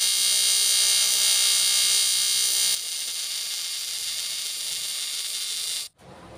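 Electric arc welding: the welding arc gives a loud, steady buzzing hiss, which drops to a quieter level a little under halfway through and cuts off sharply near the end as the arc is broken.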